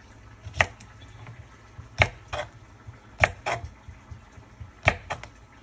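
Kitchen knife slicing a cucumber into rounds on a wooden cutting board, the blade knocking the board about eight times at an uneven, unhurried pace, often two knocks close together.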